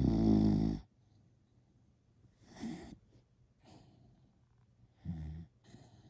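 Snoring: a loud snore lasting about a second at the start, softer breaths in between, and a second, shorter snore about five seconds in.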